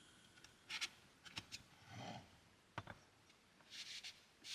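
Near silence, broken by a few faint clicks and soft knocks.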